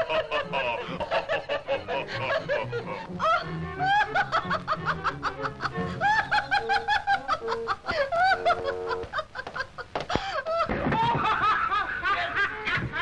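Men laughing heartily in quick bursts of ha-ha-ha, over background music.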